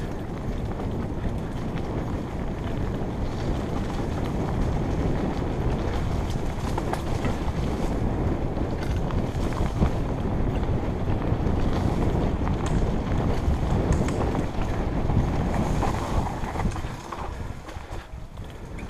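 Wind rushing over the microphone of a camera on a mountain bike riding fast down a dirt trail, mixed with tyre noise and small knocks and rattles from the bike over the bumps. It eases a little shortly before the end.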